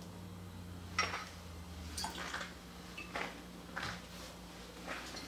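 Light clinks and knocks of bar tools and glassware, a jigger, bottles and steel shaker tins, set down and handled on the bar top while a cocktail is built. There are about half a dozen scattered taps over a faint low hum.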